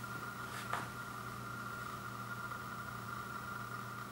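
Steady room hum from a machine or appliance, with a brief light crinkle-and-tap about half a second in as hands grab the shrink-wrapped vinyl record and lift it off the wood floor.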